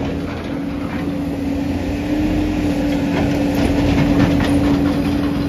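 JCB tracked excavator running at work with a steady engine hum, and irregular clanking and rattling over it.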